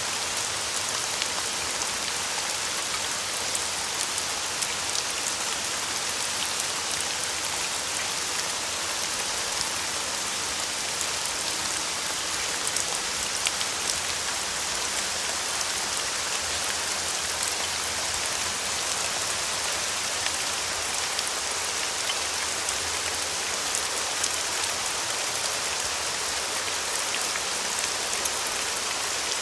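Light rain falling steadily, an even hiss with fine scattered drop ticks.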